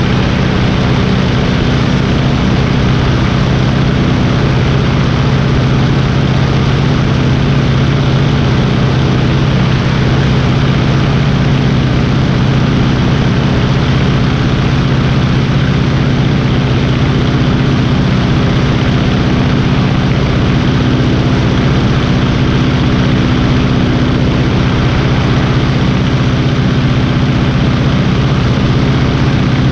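Stearman biplane's radial engine and propeller running steadily in cruising flight, with a rush of wind over the wing-mounted microphone.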